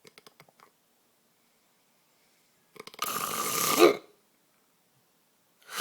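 A sleeping man snoring: one loud snore about a second long, roughly three seconds in, and the next one starting right at the end. A few faint clicks come at the very start.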